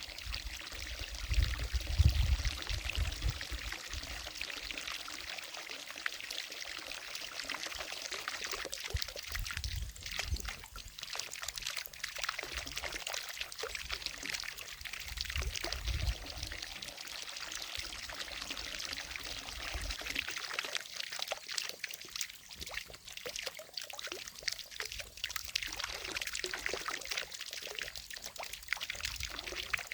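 Water falling from a small fountain into a lake, a steady splashing and trickling with brief low rumbles near the start and in the middle.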